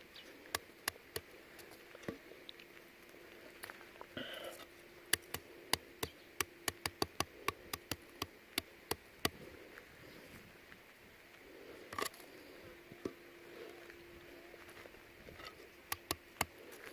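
Campfire with roasting cashew nuts crackling and popping: sharp, irregular clicks and cracks, bunched about five to nine seconds in, over a faint steady hum.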